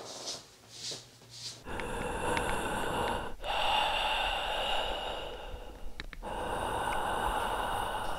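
Heavy breathing: soft, quick breaths at first, then from about two seconds in much louder, drawn-out breaths in long stretches that break off sharply twice.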